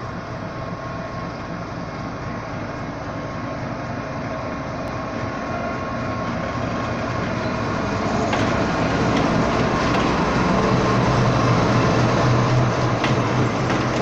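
GEU-40 diesel-electric locomotive's engine running as it rolls slowly past at close range, growing louder as it draws alongside, with a few sharp clicks of the wheels over rail joints from about halfway through.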